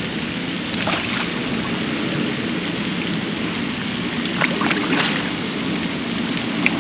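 Hooked carp thrashing at the water's surface, making a few brief splashes about a second in and again around four to five seconds in, over a steady background hiss.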